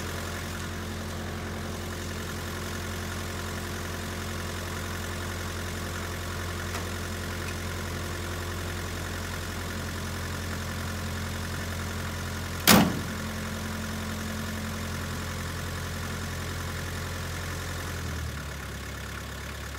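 A 1962 Land Rover Series 2A's 2.25-litre diesel engine idling steadily, with one loud bang about two-thirds of the way in as the driver's door is slammed shut. The engine note drops shortly before the end.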